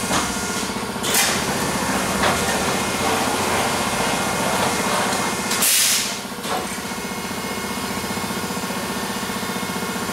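Vacuum forming machine running through a cycle: a steady motor hum throughout, with short bursts of air hiss about a second in and a longer, louder one near the middle as the heater bank and clamp frame move.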